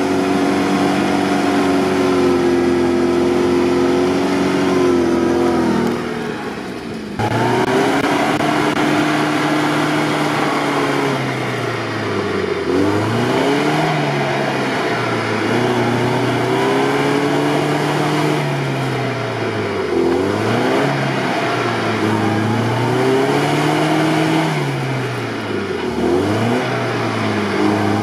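UAZ Patriot's engine revving up and down again and again as the SUV, stuck in deep mud, tries to work itself free; the pitch rises and falls every two to three seconds, with a short drop in level about six seconds in.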